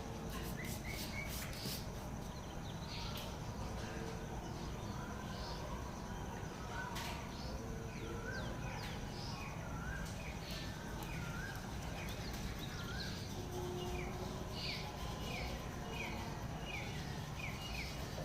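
Several wild birds chirping and calling, with short whistled and slurred notes. In the last few seconds one bird repeats a short downward note about twice a second. Underneath run a steady low rumble and a thin steady high tone.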